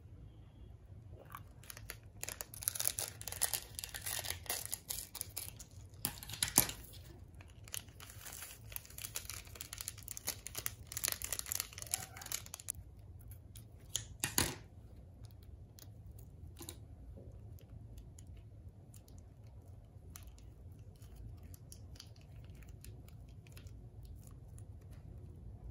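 Plastic and foil seasoning sachets from a Mi Goreng cup noodle being torn open and handled: several seconds of crinkling and tearing, a sharp snap about halfway through, then only faint rustles.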